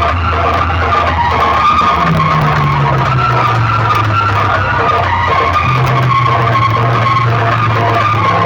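DJ sound-box speaker rig playing music at very high volume, heavily distorted, over a deep bass line that steps between a few low notes.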